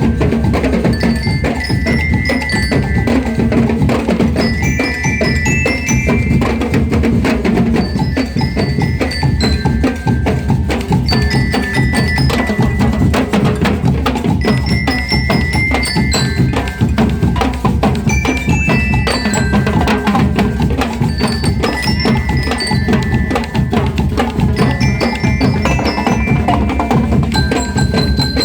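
Marching-band bell lyres (liras) ringing out a repeated high melody over steady, continuous drumming.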